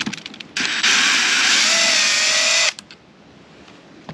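Power drill running in one burst of about two seconds, its motor pitch rising slightly and then holding steady, with a few small clicks and knocks of handling just before it starts.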